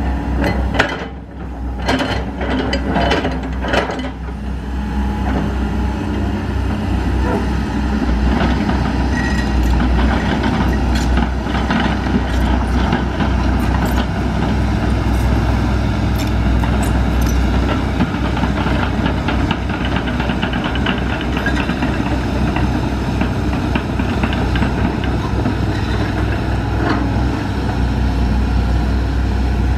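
Volvo EC210 crawler excavator's diesel engine running steadily. A run of clanks and knocks sounds in the first four seconds or so.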